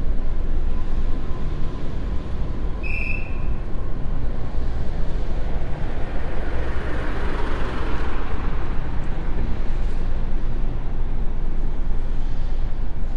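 Steady low rumble of wind and road noise on the microphone while cycling. A swell of noise rises and falls around the middle, and there is a brief high squeak about three seconds in.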